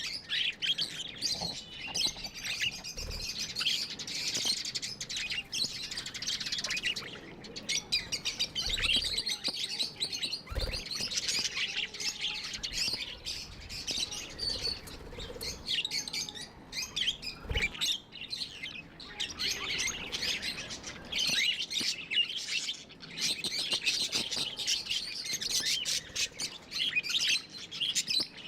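Pet budgerigars chattering and chirping without a break: a dense, fast warble of high chirps and trills. A few soft low bumps come through it, about 3, 11 and 18 seconds in.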